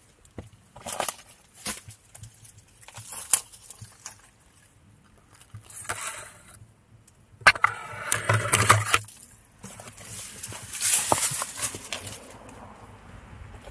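Footsteps crunching and scuffing over rocks and dry leaf litter, with irregular sharp knocks and a few longer stretches of rustling and scraping through brush.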